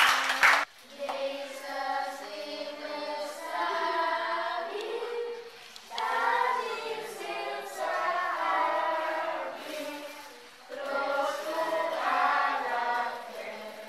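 Young girls singing a song together in three long phrases with short pauses between them. A few hand claps come right at the start.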